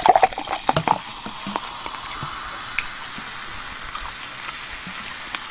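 Cola poured from a plastic bottle into a glass mug, fizzing with a steady hiss. A few clicks and splashes come in the first second.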